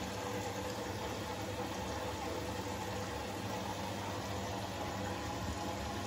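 Siemens washing machine in its first rinse: a steady rush of water in the drum over a low hum.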